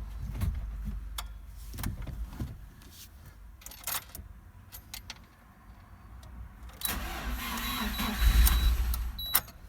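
Rebuilt Lada Priora 1.4-litre engine being cranked by its starter on its first start after reassembly: a few scattered clicks, then about two and a half seconds of cranking near the end with a heavy low rumble as it tries to catch, cutting off suddenly.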